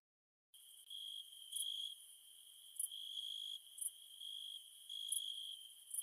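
Crickets chirping at night in a steady high trill, with short louder chirps about once a second; it starts suddenly about half a second in.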